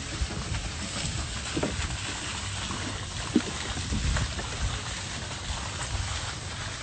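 Uneven wind rumble on the microphone with a steady rushing hiss while the camera moves, and a short sharp tick about halfway through.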